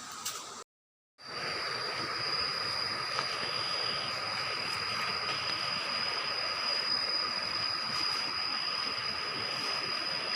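Steady rushing of a river, an even wash of water noise with a thin, steady high-pitched tone over it; the sound drops out briefly about a second in, then carries on unchanged.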